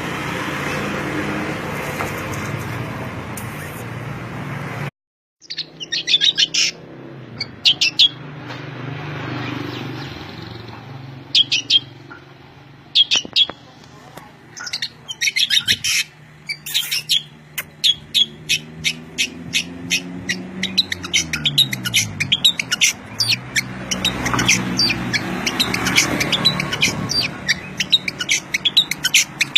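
Songbird chirping and twittering in short, rapid bursts of high notes, over a low background rumble. The sound drops out briefly about five seconds in.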